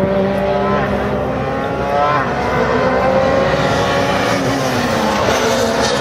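Rally car engine revving hard as it accelerates, its note climbing and dropping at an upshift about two seconds in, then holding a more even high note.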